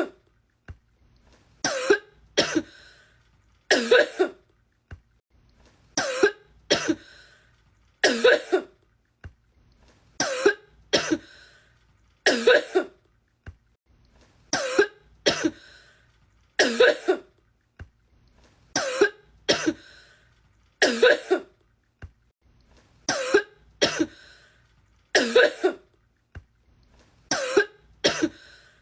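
A woman coughing over and over: a coughing fit edited into a loop, with a single or double cough about every two seconds.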